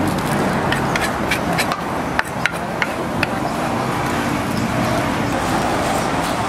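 Spoon knocking and scraping against a large wooden mortar as papaya salad is scooped out, a run of sharp clicks about three a second through the first half. Steady street and traffic noise underneath.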